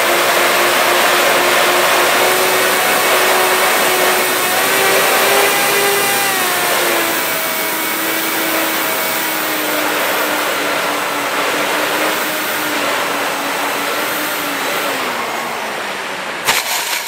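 Electric motors and propellers of a HobbyKing B-25 Mitchell model plane whining steadily under heavy wind rush on the onboard camera, the pitch wavering with the throttle and falling over the last couple of seconds as it comes in to land. A sharp knock near the end as it touches down on the grass.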